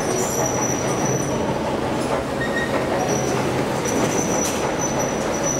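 Metro train running, a steady noise with a thin, high wheel squeal that comes and goes: squealing for the first second or so, stopping, then starting again about three seconds in.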